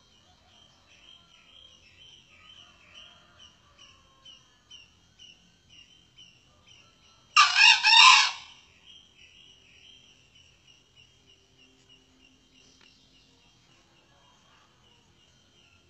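A male junglefowl crows once: a short call of about a second, in three pulses, about halfway through. Under it runs a faint, steady insect chirping of about two chirps a second.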